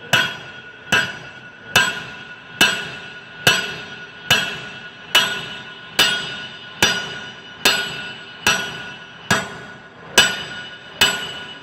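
Sledgehammer blows flattening a piece of hot iron on an anvil, a steady rhythm of a little over one strike a second, each blow leaving a bright metallic ring.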